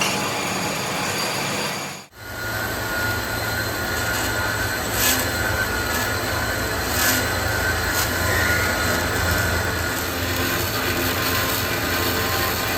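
Steady, loud workshop machinery noise with a low hum, cutting out briefly about two seconds in and resuming, with a couple of sharp metallic clicks.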